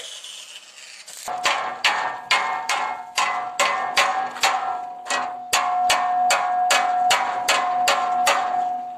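Hammer blows on the steel frame of a manure spreader, about three a second, starting about a second in. The metal rings on with a steady tone between strikes. Before the hammering there is a short hiss from arc welding.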